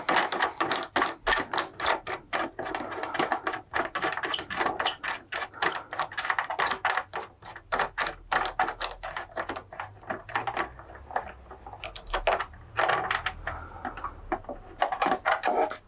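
Rapid, fairly regular metallic clicking from a hand tool undoing a motorcycle windscreen mounting bolt.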